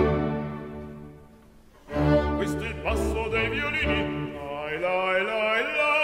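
Chamber orchestra strings and winds playing classical opera music: a held chord fades away, and about two seconds in the orchestra starts a new passage.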